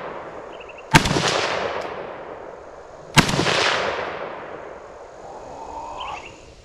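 Two rifle shots from a Romanian SAR-2, an AK-74 pattern rifle in 5.45x39, about two seconds apart. Each is a sharp crack followed by a long fading echo.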